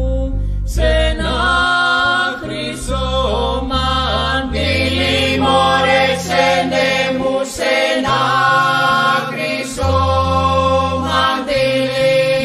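Music: a Greek folk polyphonic song for several voices singing together, with a steady held drone note under bending melodic lines and a low bass line stepping between notes.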